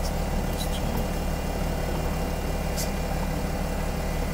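Steady low hum inside a car cabin, with a few faint ticks.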